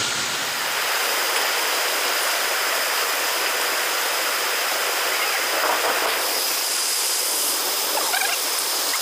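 Muddy floodwater rushing and gushing in a steady torrent across pavement during a heavy downpour, with a faint steady high tone running through it.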